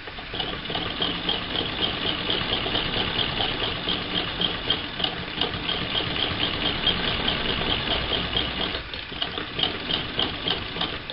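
1937 Frister and Rossmann transverse shuttle sewing machine stitching at a steady pace, a rhythmic mechanical clatter of a few stitches a second. About nine seconds in it slows and makes a few slower stitches.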